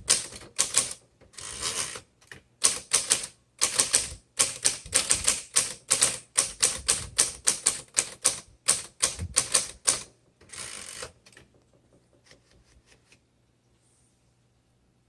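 Typing on a 1957 Smith Corona Silent Super manual typewriter: a quick, uneven run of sharp key strikes for about ten seconds. It ends with one longer, drawn-out mechanical sound and a few faint clicks.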